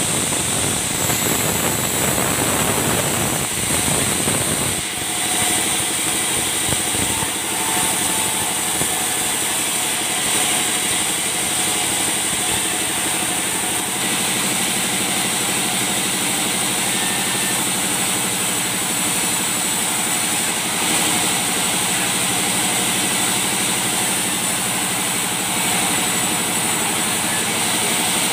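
A stationary engine runs steadily, driving a vertical band saw as it cuts balsa logs into boards. The machinery drone is constant, with its tone shifting slightly a few times.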